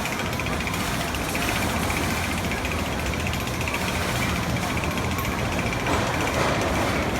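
Roller coaster running: a steady rumble with a fast, continuous rattle.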